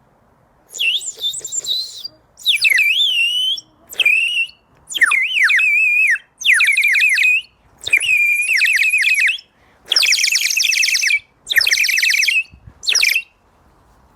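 A bird whistle blown in about nine short bursts, each a high warbling, trilling whistle with the pitch wobbling rapidly up and down.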